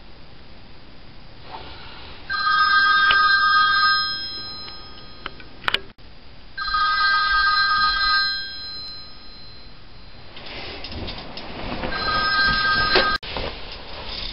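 Telephone ringing three times, each ring about two seconds long; the third ring is cut off short.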